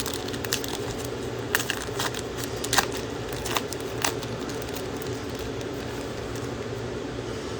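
Plastic wrapper of a trading-card pack crinkling as the pack is torn open. There are several sharp crackles over the first four seconds, over a steady background hum.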